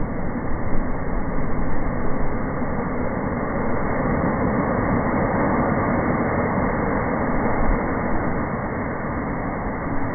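Ocean waves breaking and splashing against lava rock, a steady rush of surf with small swells in level.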